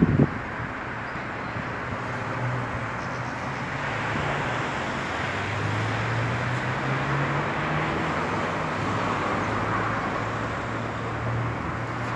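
Steady city street traffic: a continuous rumble and hiss of passing vehicles, with a low engine drone that rises and falls. A brief thump right at the start.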